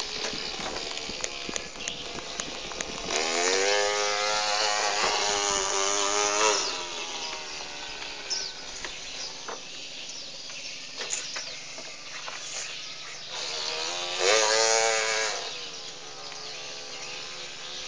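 A small child imitating a chainsaw with the voice: two revving buzzes, each rising in pitch as it starts and then held. The first comes about three seconds in and lasts about three and a half seconds; the second, shorter one comes past the middle. Insects chirp steadily underneath.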